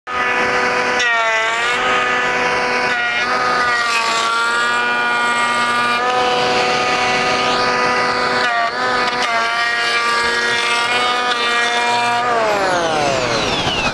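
Electric hand planer running with dust extraction as it shaves a Western red cedar paddle blank, its motor whine dipping in pitch several times as the cutter bites into the wood. Near the end it is switched off and winds down with a long falling whine.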